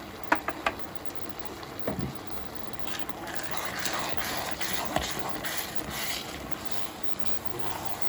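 Kitchen utensils clicking sharply against a pan three times, a knock, then from about three seconds in a stretch of scraping and stirring noise in the pan of risotto.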